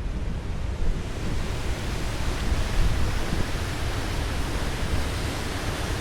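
Water rushing steadily from a dam whose reservoir is full, a dense even roar of falling water.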